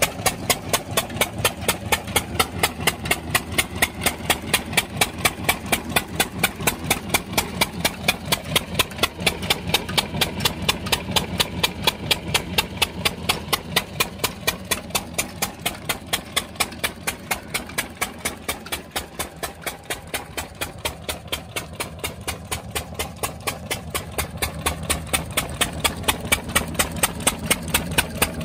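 Old 7 HP single-cylinder flywheel diesel engine running steadily, driving a 4-inch borewell water pump. It beats out an even, fast knock of roughly four or five firing strokes a second, easing slightly in loudness partway through.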